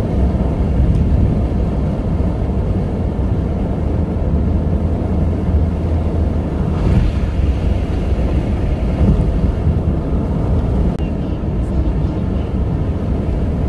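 Steady low road rumble of a moving car, with a brief rise of hiss about halfway through.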